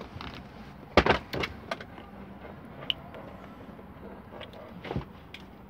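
Clunks and clicks of a van's rear seats being handled and folded flat: a loud clunk about a second in, a couple of smaller knocks just after, and another knock near the end.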